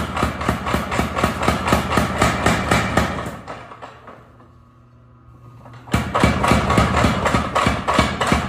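Foot-controlled mechanical forging hammer striking rapidly, about five blows a second. The blows fade out about three seconds in, leaving a low machine hum, then start again abruptly about six seconds in.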